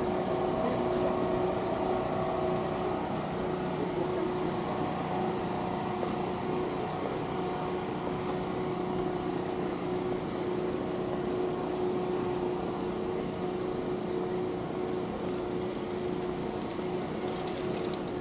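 A motor or machine running steadily, giving a constant hum with a steady tone over a noisy rumble; a brief high hiss comes near the end.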